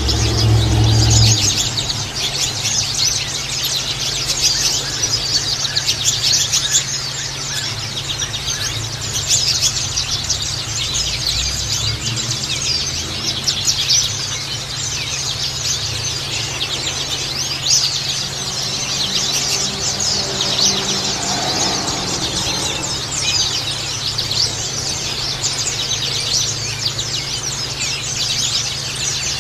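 A flock of white-eyes (pleci) chirping and twittering busily, with dense, high, fast chirps overlapping without a break. This is the kind of lure call used to get pleci to answer and sing. A low steady hum runs underneath.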